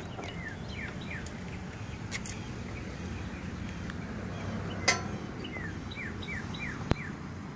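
A songbird singing two runs of quick, falling whistled notes, one near the start and one past the middle. A few sharp clicks come in between, the loudest about five seconds in, from hands working on the motorcycle's rear shock absorber.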